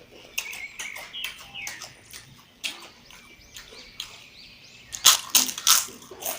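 Chewing and wet lip-smacking while eating mutton curry with rice, a quick run of short smacks with a louder cluster about five seconds in.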